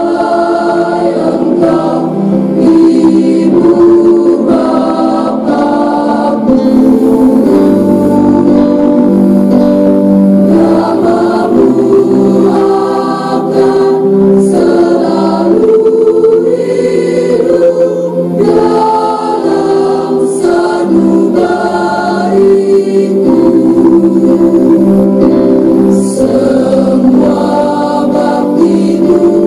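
A large choir of high-school students singing together, with long held notes.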